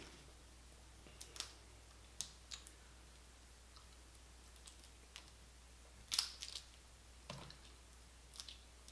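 Boiled blue crab shell being cracked and picked apart by hand: scattered sharp cracks and crunches, the loudest about six seconds in.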